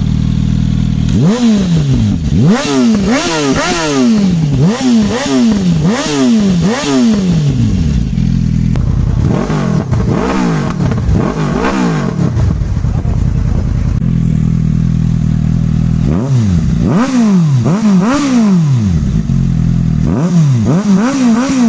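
Motorcycle engine being revved in quick throttle blips, each rev rising sharply and falling back, in several bursts of a few revs each, settling to a steady idle between the bursts.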